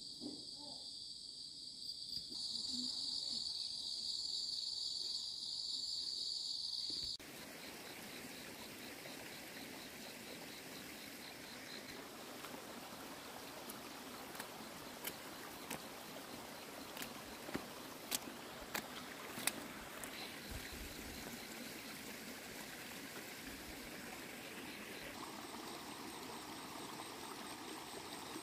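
Insects chirring steadily in a high, even band, cut off suddenly about seven seconds in. After that, an even outdoor hiss with scattered sharp clicks.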